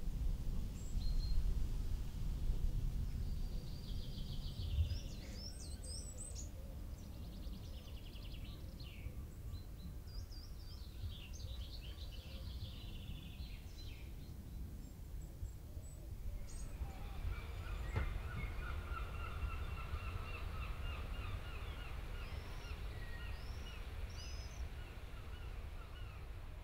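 Birds singing and calling over a low background rumble. About sixteen seconds in the sound changes abruptly to a different set of birdsong made of rapidly repeated notes.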